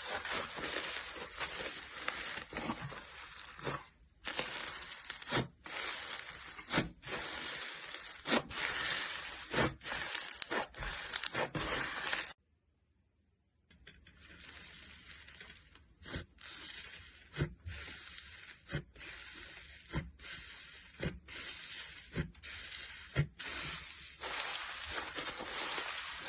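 Slime being squeezed, stretched and pressed by hand, giving a steady crackling with frequent sharp pops. The sound breaks off completely for about a second and a half near the middle.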